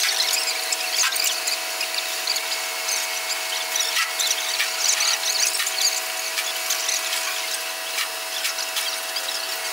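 Segment launching gantry's lifting gear running as it lowers its lifting frame: a steady machine hum with many short, irregular high-pitched squeaks and scrapes, and a couple of faint clicks.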